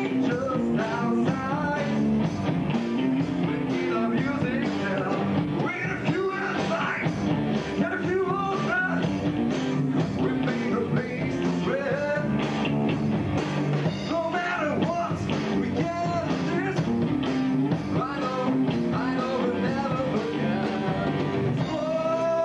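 Rock band playing live: electric guitars, bass guitar and drums with a steady beat, and a man singing over them.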